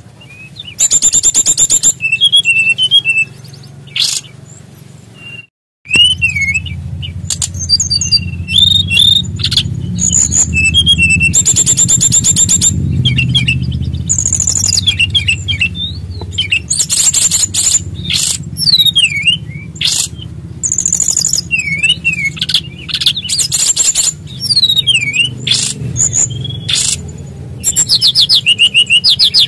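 Brown-chested jungle flycatcher (SRDC) singing continuously: rapid rattling trills alternating with quick whistled up-and-down phrases, the rolling, phrase-packed song that keepers call 'gacor ngeroll full isian'. There is a brief break about five and a half seconds in, and a low steady hum runs beneath the song.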